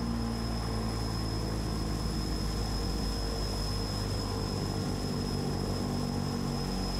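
DHC-6 Twin Otter seaplane's twin PT6A turboprop engines and propellers running steadily at low taxi power as the floatplane taxis slowly on the water. It is an even propeller drone with a thin, steady high whine over it.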